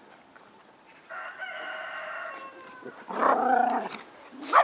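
A rooster crows once, a long held call starting about a second in. Just after it, dogs growl briefly as they wrestle in play.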